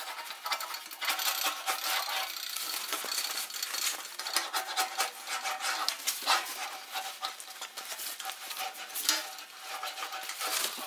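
Sheet-metal panel being rolled back and forth through an English wheel, a continuous irregular metallic rattling and scraping with a steady ringing note from the flexing sheet. The wheel is smoothing the perimeter of a freshly formed floor-pan pocket.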